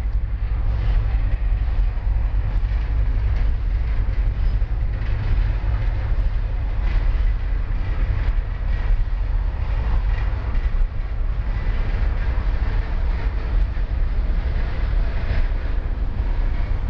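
Freight train cars, including lumber-loaded centerbeam flatcars, rolling steadily past: a continuous rumble of steel wheels on the rails with scattered clicks.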